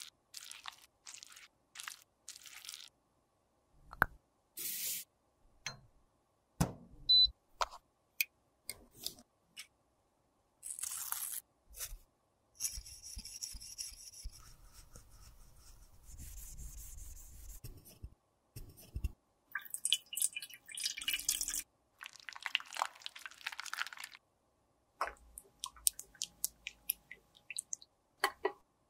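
Close-miked handling sounds from cleaning out a lipstick: a craft knife scraping red lipstick off a tissue, and tweezers scraping and clicking inside an empty plastic lipstick tube. A few sharp clicks and taps stand out, and near the end there is the sound of foamy soapy water in a metal tray.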